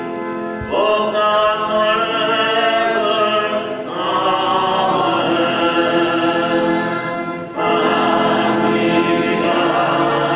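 Many voices singing a slow processional hymn in a reverberant church, holding long notes that change every three to four seconds.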